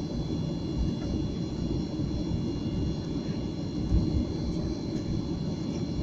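Boeing 737-800's CFM56 jet engines at low thrust, heard inside the cabin: a steady low rumble with a steady high whine over it, as the aircraft moves slowly on the ground before the takeoff roll.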